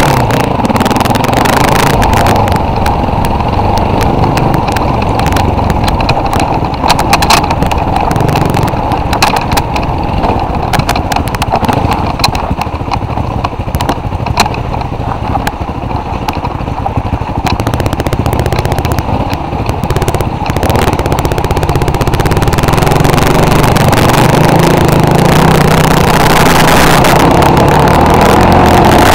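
Off-road vehicle engine running continuously on a rough dirt trail, with many rattles and knocks from bumps and stones, thickest through the middle. The engine gets a little louder in the last third.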